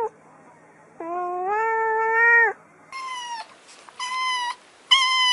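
A cat gives one long meow, then a kitten mews three times in a higher, thinner voice, the last mew held longer.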